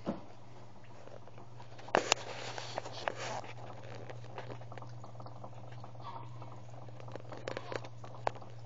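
A steady low hum, with scattered sharp clicks and knocks: a cluster about two seconds in and a few more near the end.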